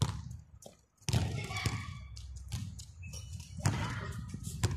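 A basketball bouncing on a concrete court: a handful of sharp thuds, irregularly spaced.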